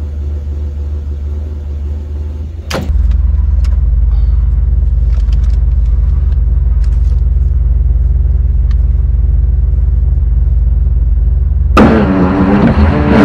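A big-block V8 in a 1994 Chevy 3500HD tow truck idles steadily with a low rumble. About three seconds in it becomes louder and steadier. Near the end a much louder sound with shifting pitch comes in.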